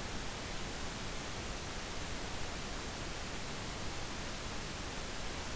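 Steady hiss with nothing else in it: the recording's background noise floor.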